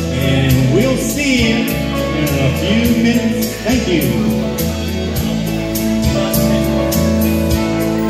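Live electric guitar and keyboard playing an instrumental break in a country ballad over a steady beat and bass line. In the first half the lead line bends and glides between notes.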